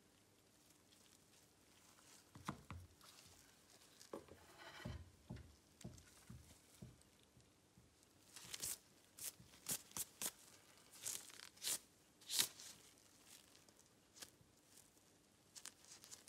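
Quiet handling noise of nitrile-gloved hands moving a phone and a coin: a few soft thumps, then a run of short sharp scrapes and clicks, with no speech.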